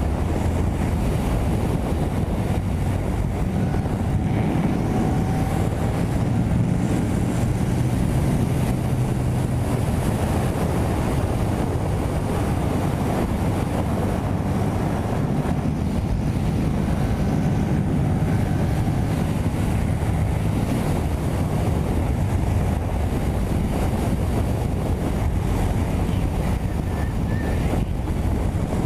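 Yamaha MT-07 parallel-twin engine running at highway speed under heavy wind noise on the microphone, a steady drone that slows somewhat toward the end.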